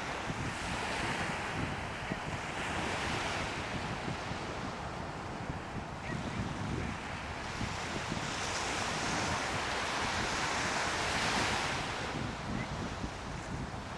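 Waves washing in, swelling and easing twice, with a steady low rumble of wind buffeting the microphone.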